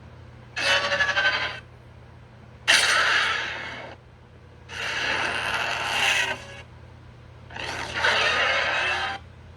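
Four film sound effects for Airazor, a robotic falcon. Each is a burst about a second long with wavering pitched tones over a harsh, noisy wash, and short pauses fall between them.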